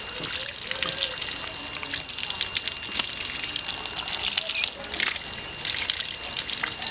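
Water running from an open pipe outlet and splashing through a woven bamboo basket of eels and onto the ground, with steady irregular splattering as the stream is broken up by the basket and hands.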